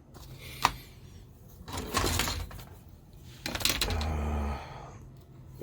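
Handling noises at a model-building workbench: a sharp click about half a second in, then two stretches of scraping and rustling, each about a second long.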